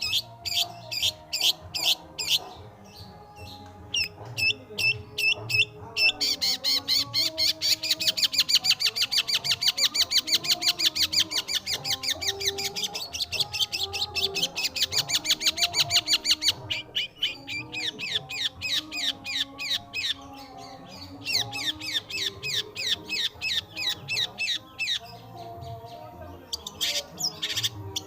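Long-tailed shrike singing a rapid series of short, falling notes. After a few seconds these speed up into a fast, unbroken rattle lasting about ten seconds, then break back into quicker separate series.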